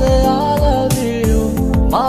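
Instrumental break of a Bengali romantic song: a melody instrument playing held notes that slide up into pitch, over a steady drum beat.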